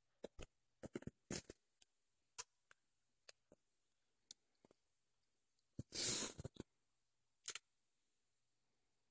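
Mostly quiet, with faint scattered clicks and taps and one short noisy rush about six seconds in, from a small papillon dog nosing and pawing at a laptop close to the phone.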